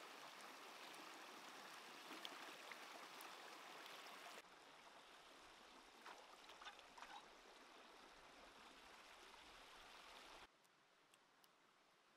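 Stream water running, with small splashes as a piece of raw beef is rinsed by hand in the current. The water sound steps down after about four seconds and falls away near the end, leaving only a few faint ticks.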